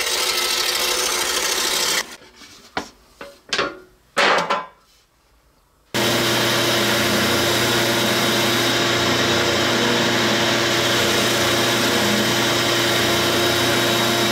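A scroll saw cutting an MDF template cuts off about two seconds in, followed by a few light knocks. About six seconds in, an oscillating drum sander runs steadily with a low motor hum, sanding the template up to the line.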